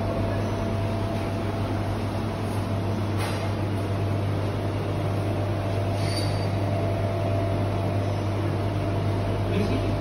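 A steady low mechanical hum with a faint constant whine above it, the even background drone of the room, with a couple of faint clicks about three and six seconds in.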